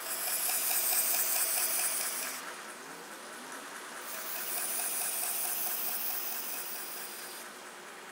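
Knife edge stropped on a leather strop belt running on a 2x72 belt grinder: two long hissing passes of the blade against the moving belt, each about two to three seconds, over the grinder's steady running hum.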